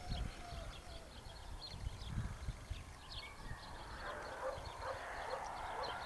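Outdoor field ambience: small birds chirping repeatedly, with gusts of wind rumbling on the microphone. From about four seconds in, a rougher mid-pitched sound rises underneath.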